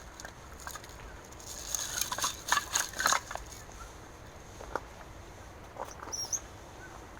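Firewood burning in a fire pit, crackling and popping over a low steady rumble: a quick flurry of loud pops about two to three seconds in, then scattered single pops, with a brief high whistle about six seconds in.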